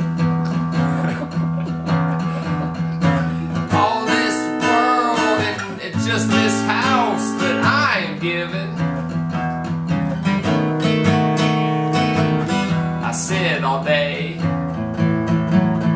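A man singing a blues song while strumming a steel-string cutaway acoustic guitar, with the sung phrases coming and going over the steady guitar chords.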